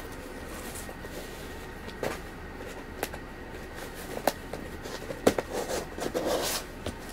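Handling noise as items and packaging are moved about: a few separate sharp clicks and knocks, then a short stretch of rustling near the end, over a steady background hiss.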